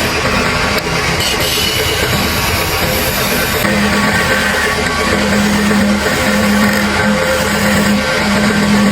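Rock-style background music with guitar and drums. About four seconds in, a steady machine hum joins it and runs in long stretches with short breaks.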